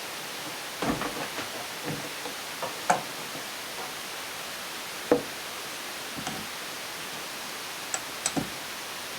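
Scattered clicks and knocks of tools and metal engine parts being handled on a workbench, a few at a time, with two sharper knocks in the middle, over a steady background hiss.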